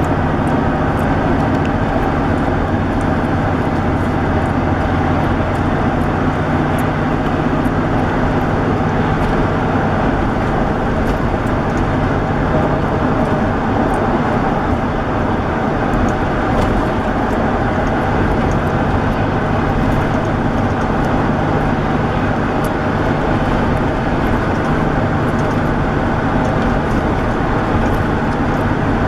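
A car driving at road speed: a steady engine hum with tyre and road noise, unchanging throughout.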